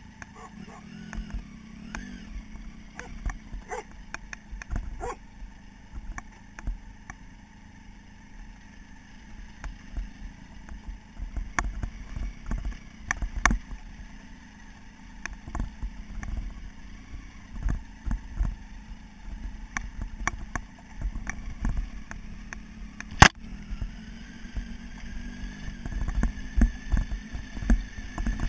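Motorcycle engine running at low speed on a rough gravel track, heard from a camera mounted on the bike, with frequent irregular low thumps as the bike is jolted over stones. A single sharp click about five seconds before the end is the loudest sound.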